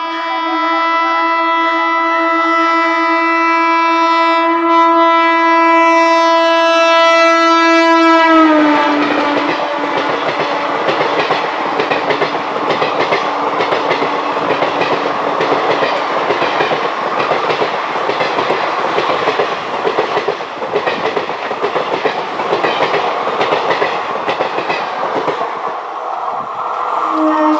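A WAP-4 electric locomotive's horn sounds one long continuous blast of about eight seconds, and its pitch drops as the locomotive passes. Then the coaches of an Indian Railways express rush past at speed with a continuous clickety-clack of wheels over rail joints. Another horn sounds briefly near the end.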